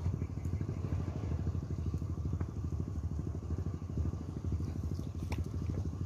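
An engine running steadily with a fast, low pulsing beat, with a few light clicks on top.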